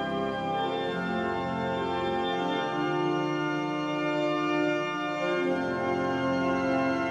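Organ music: slow, held chords that change about two seconds in and again past the middle.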